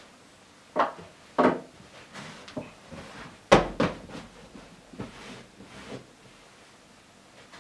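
Handling noise from a black bag and gear being moved about on a fabric sofa: a string of rustles and knocks, the loudest a dull thump about three and a half seconds in.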